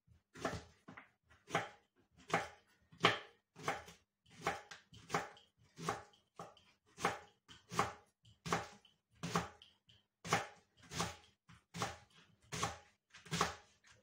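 Kitchen knife chopping leeks on a plastic cutting board: a steady run of cuts, about three every two seconds, each ending in a knock of the blade on the board.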